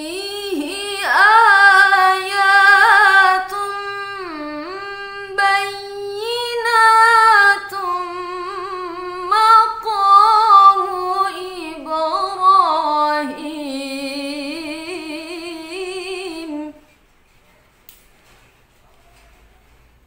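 A woman's unaccompanied voice reciting the Qur'an in the melodic tilawah style, drawing out long ornamented phrases that rise and fall in pitch. The recitation stops about seventeen seconds in.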